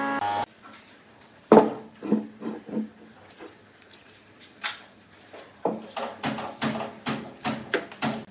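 A power tool's motor cuts off just after the start. Then come irregular knocks and clatters of wooden pieces being handled and set down on a workbench, the loudest about one and a half seconds in and a quick run of them near the end.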